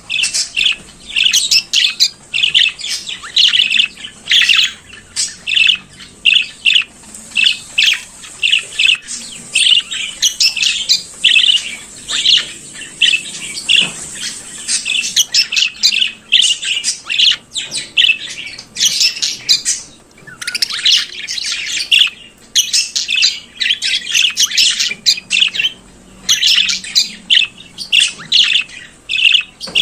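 Budgerigars chattering and warbling, a fast unbroken run of short high chirps and squawks.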